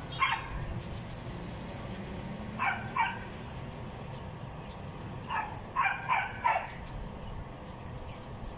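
A dog barking in short calls: once, then a pair a couple of seconds later, then four quick barks in a row, over a steady low background hum.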